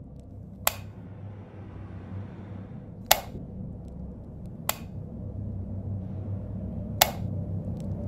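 Four sharp, isolated clicks at uneven gaps of about one to two and a half seconds, over a low rumbling drone that slowly grows louder.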